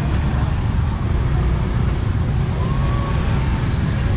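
Steady low rumble of road traffic and market bustle, with no clear single event standing out.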